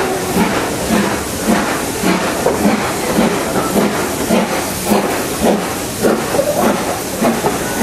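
Steam locomotive working under way, its exhaust beats chuffing steadily at about two a second with hissing steam, heard from inside a passenger carriage.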